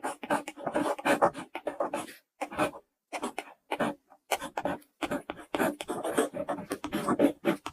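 Pen-writing sound effect: a pen nib scratching across paper in many short strokes, broken by brief silent gaps between strokes.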